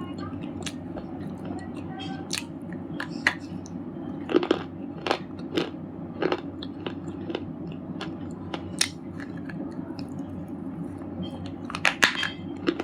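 Red slate chips being bitten and chewed close to the microphone: sharp, irregular crunches and cracks, with a cluster of louder crunches near the end.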